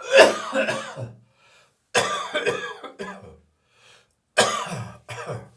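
A person's dry morning cough: three bouts about two seconds apart, each a quick run of two or three coughs.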